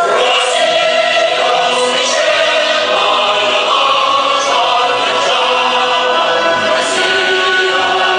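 Music with sustained, choir-like singing: long held chords that shift every second or so, loud and steady throughout.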